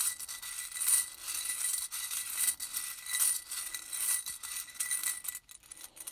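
A handful of small divination charms shaken and rattled together, clinking in repeated surges about once a second before being cast, the rattling dying away shortly before the end.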